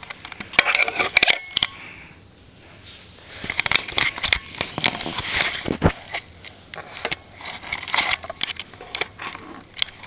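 Handling noise right at the microphone: rapid clicks, taps, knocks and rubbing as a toddler grabs and bumps the camera, in two busy flurries with a quieter moment between.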